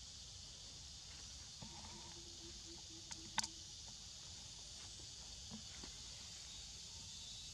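Faint, steady high hiss of an insect chorus in the forest. A faint held tone sounds for about two seconds, starting near two seconds in, and a single sharp click comes a little after three seconds.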